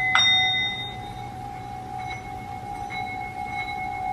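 Tibetan singing bowl struck with a mallet just after the start, ringing on with several steady tones. Lighter taps come about two and three seconds in.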